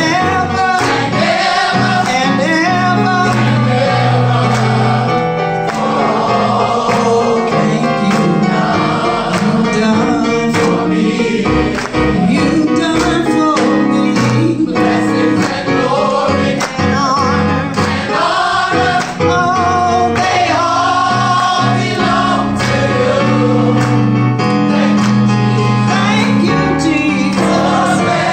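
Gospel singing by a vocal group over instrumental backing, with a steady bass line beneath the voices.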